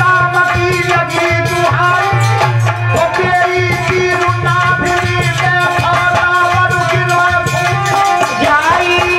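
Live Indian devotional folk accompaniment: a harmonium playing sustained melody lines over a steady hand-drum beat, with jingling percussion.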